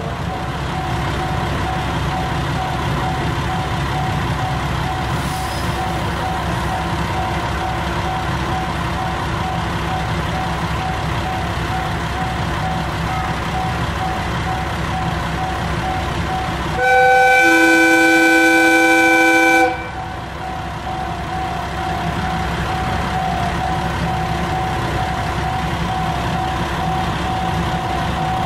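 A Japanese train's horn sounding once for about three seconds, a chord of several tones, over the steady low running of a diesel locomotive. A faint repeating tone goes on in the background.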